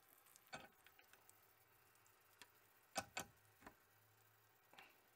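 Faint metal clicks of a small screwdriver tip prying at the heated ratchet's faceplate, a few separate ticks with the loudest pair about three seconds in; the faceplate is not yet coming free.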